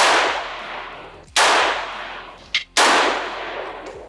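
AK-47-pattern rifle fired semi-automatically, one shot at a time: three loud shots about a second and a half apart, each followed by a long echo fading away.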